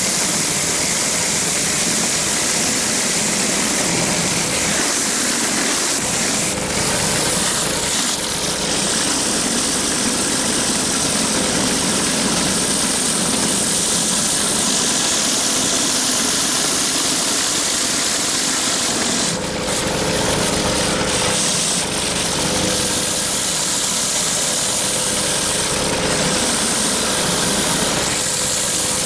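Pressure washer running steadily, its engine under the hiss of a rotary surface cleaner's water jets spinning against a concrete sidewalk. One of the surface cleaner's spray tips is partly clogged and not working right.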